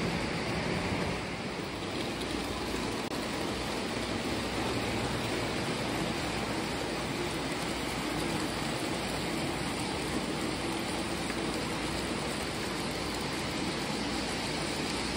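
O gauge model passenger train behind a steam locomotive running past on three-rail metal track: a steady rumbling whir of wheels on the rails and the locomotive's motor, with a rain-like hiss.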